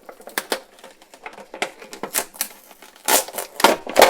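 A doll's cardboard-and-plastic box being opened by hand: packaging crackles and clicks irregularly, with a few louder snaps in the last second.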